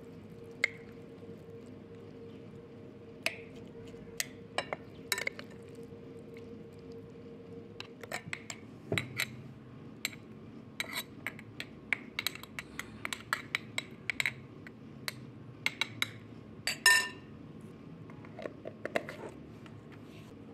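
Metal spoon clinking and scraping against a glass bowl and a glass jar as shredded vegetables are spooned in and packed down: scattered sharp clinks that come thicker after about eight seconds, with one louder, briefly ringing clink near the end.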